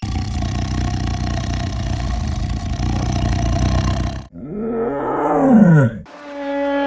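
Bovine calls, edited together: a long, low, steady bellow for about four seconds, then a moo that rises and falls in pitch, then a new steady moo starting near the end.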